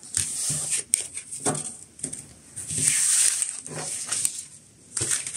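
Tarot cards being swept up and gathered into a deck on a cloth-covered table: soft sliding and light taps, with a longer rustle of sliding cards about three seconds in.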